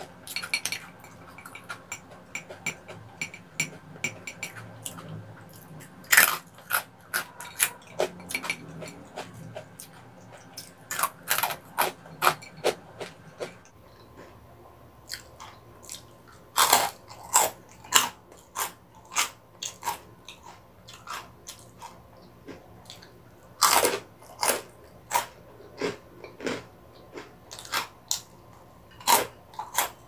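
Close-miked crunching and chewing of crispy puffed snacks, honey twists and Cheetos, bitten and chewed by mouth: irregular sharp crunches, some bites much louder than the rest.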